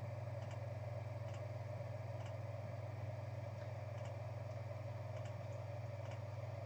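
Steady low electrical hum of room tone, with faint, evenly spaced ticks about once a second.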